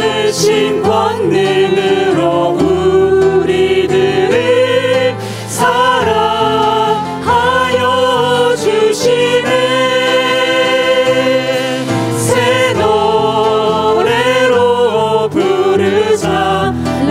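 Church praise band performing a worship song: singers' voices with vibrato over a drum kit, electric bass guitar and keyboards.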